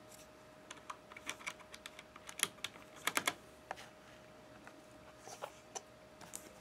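Scattered sharp plastic clicks and taps of keycaps being handled and pressed onto a Corsair K70 mechanical keyboard's Cherry MX switches as the spacebar is fitted, with a cluster of louder clicks about halfway through.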